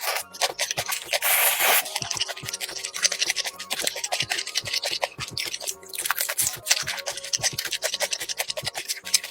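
Close-miked eating sounds: a dense run of wet chewing clicks as noodles are eaten, with a short noisy burst about a second and a half in, over quiet background music.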